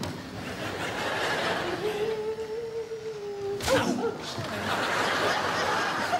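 Audience laughing, with a held hum-like tone in the middle and one sharp knock a little under four seconds in.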